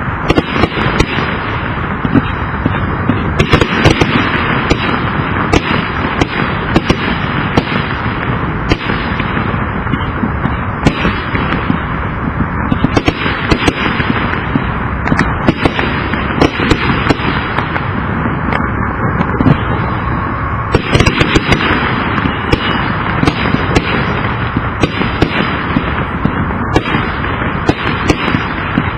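Consumer fireworks battery (salute cake) firing a rapid, continuous sequence of shots: many sharp bangs close together over a constant crackle.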